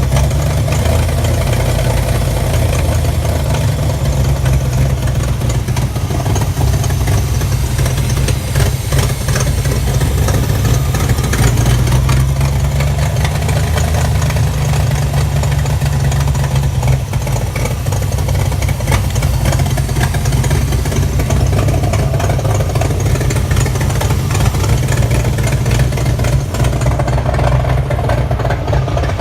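Ford 5.0-litre (302) V8 idling steadily, freshly reassembled with new head gaskets.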